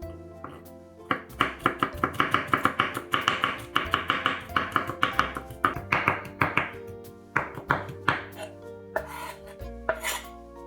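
Knife chopping on a cutting board in quick, even strokes, about four or five a second, thinning to scattered cuts in the second half, over background music.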